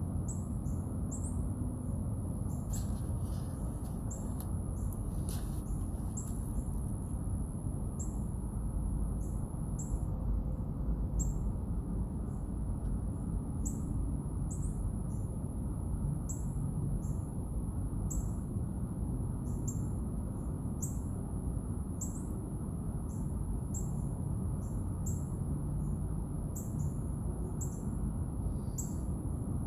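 Outdoor background: short, high chirps repeating irregularly about once or twice a second over a steady low rumble and a constant high-pitched hiss.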